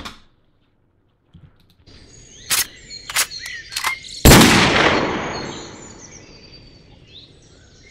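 Gunshot sound effect, loud and sudden about four seconds in, fading away over a few seconds. It is led by three short gun-loading clicks a little over half a second apart, over an ambient track with birdsong.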